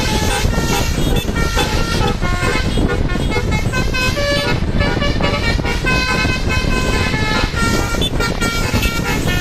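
Bus telolet basuri musical horn playing a quick tune of short notes at changing pitches, over steady loud engine and road noise.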